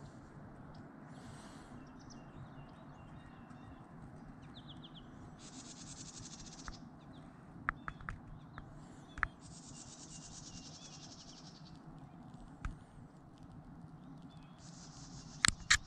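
A bird's high, buzzy trill repeats three times, each lasting one to a few seconds, over a low steady outdoor rumble. Scattered sharp clicks and snaps come through, the loudest pair near the end.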